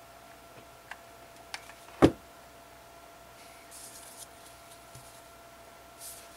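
A few small clicks, then one sharp knock about two seconds in as the hot glue gun is set down on the tabletop. Soft rustling follows as the ribbon turtle is handled and pressed, over a faint steady hum.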